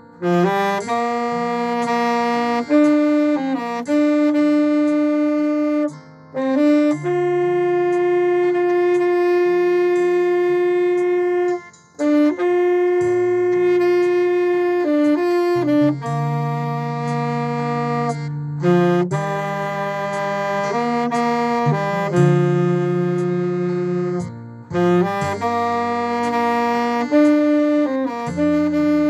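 Instrumental music: a slow melody of long held notes on a wind instrument, in the manner of a saxophone, over a low backing accompaniment, with short breaks between phrases.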